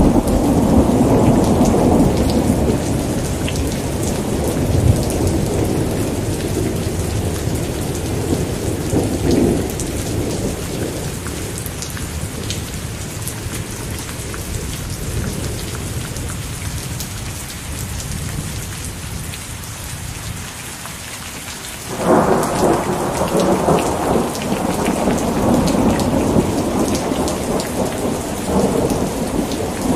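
Steady rain with thunder rolling: a long rumble fades away over the first twenty seconds or so, then a new thunderclap breaks in suddenly about two-thirds of the way through and rumbles on to the end.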